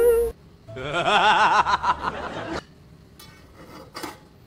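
A person laughing: a wavering, pulsing chuckle of about two seconds that begins about a second in. Just before it, a ringing tone cuts off; faint clicks follow near the end.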